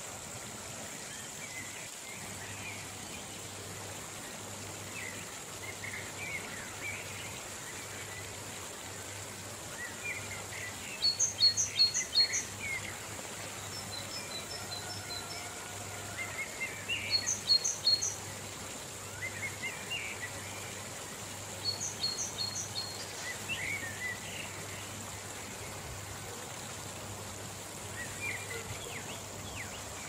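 River rapids rushing over rocks in a steady wash, with small birds singing over it. The birdsong comes in three short bursts of quick, high repeated notes about five seconds apart, the loudest sounds here, among scattered lower chirps.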